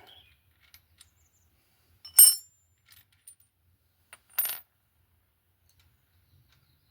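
Two sharp metallic clinks about two seconds apart, each with a brief high ring, with a few faint light clicks between them: steel hand tools knocking together while a motorcycle spark plug is being loosened with a spark plug wrench.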